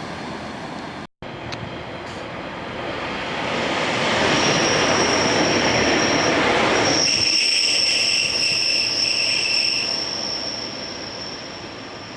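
Train rolling past the platform, its rumble building and then fading away, with steel wheels squealing on the rails in a steady high-pitched tone that holds through the second half.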